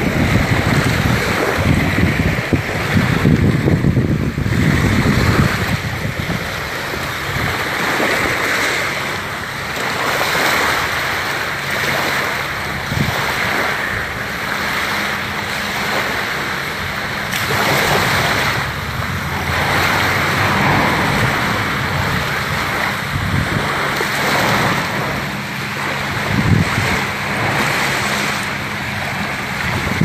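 Small waves washing up on a sandy shore, swelling and falling back every few seconds, with wind buffeting the microphone, heaviest in the first few seconds.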